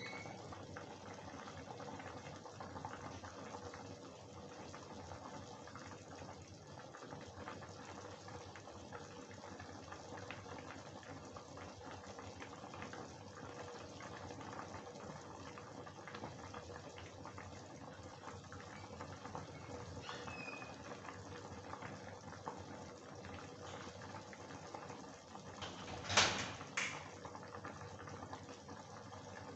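Thin potato and soya-chunk curry simmering at a boil in a kadhai, a faint steady bubbling. Near the end, two sharp knocks about half a second apart.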